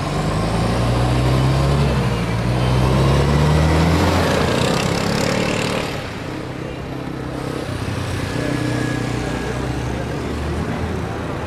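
A motor vehicle's engine running close by, a low steady drone that grows louder over the first few seconds and then drops away about halfway through, with a quieter engine sound continuing.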